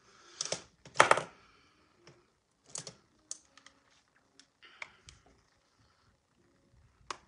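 Scattered clicks and light knocks of plastic makeup cases and brushes being handled and set down. They come a few at a time with gaps between them, and the loudest is about a second in.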